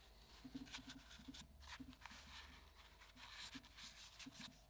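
Faint, irregular rubbing of a lint-free cloth wiped around inside an air-dryer cartridge housing, cleaning the seat where the sieve was removed.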